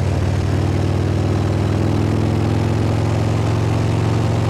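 Harley-Davidson Ultra Limited's V-twin engine running at highway speed, its pitch creeping up slightly as the bike accelerates from about 80 km/h, with wind noise on the microphone.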